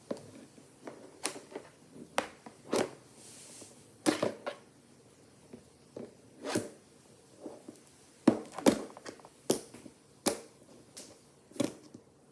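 Small plastic toy figures knocked and set down on a tabletop, giving a dozen or so short, sharp clicks and knocks at irregular intervals.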